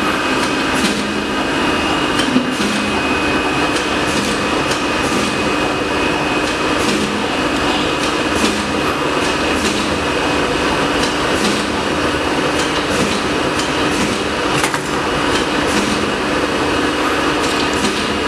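Automatic roll-to-roll film processing machines running: a steady mechanical whir with a couple of steady tones, and frequent sharp clicks and knocks.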